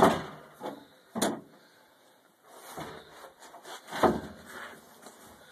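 Knocks and scrapes of things being handled and set down on a stainless steel fish-cleaning table, loudest at the start, about a second in and about four seconds in.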